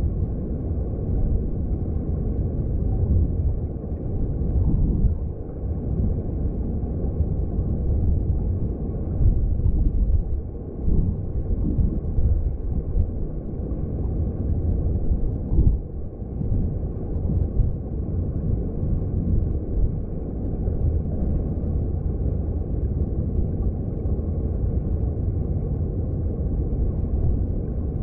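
Underwater sound of a mountain stream: flowing water heard from below the surface as a steady low rumble that wavers slightly.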